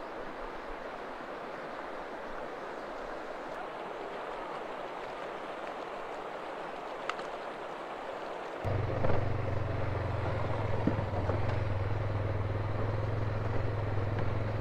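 Steady outdoor rushing noise. About two-thirds of the way through, a vehicle engine idling comes in suddenly with a steady low hum and runs on.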